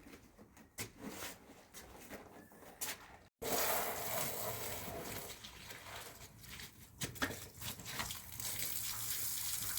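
Light knocks and clicks, then, after a sudden cut about three seconds in, water running or pouring steadily with an occasional knock.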